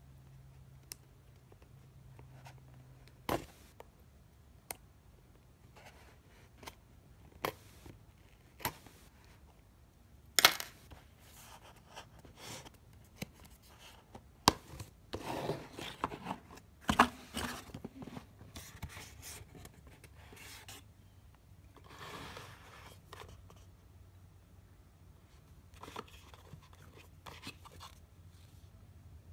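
A cardboard retail box being opened by hand: scattered clicks and taps as a small pointed tool picks at the seal, then stretches of scraping and rustling cardboard as the lid is lifted and the inner box is slid out. The sharpest snap comes about ten seconds in.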